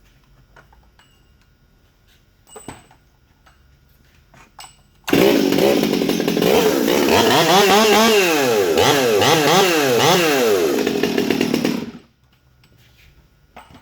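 Stihl MS 200T top-handle chainsaw, its small two-stroke engine modified as a muscle-saw build, starting suddenly about five seconds in and revved up and down several times before cutting off sharply about twelve seconds in. A few faint clicks and a small knock come before it.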